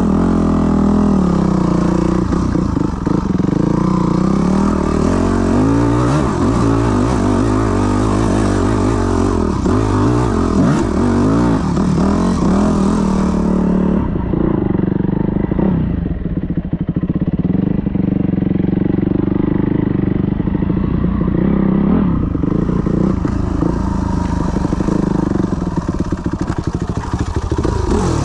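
Yamaha WR250F's 250 cc four-stroke single-cylinder engine, heard on board while riding a dirt trail. The engine pitch rises and falls as the throttle is opened and closed.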